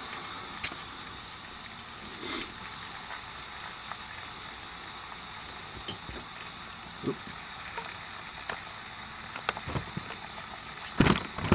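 Water running steadily out of a water heater's drain as the tank is flushed of sediment, with scattered small clicks and pops where air in the line sputters through. A few louder knocks come near the end.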